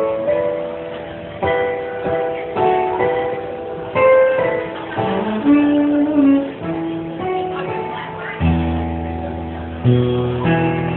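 Electronic keyboard played in a piano sound during a band sound check, chords struck about once a second and left to ring. Deep held bass notes come in near the end.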